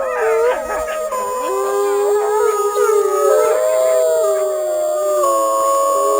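Several wolves howling together, overlapping long howls that hold and slide in pitch against one another.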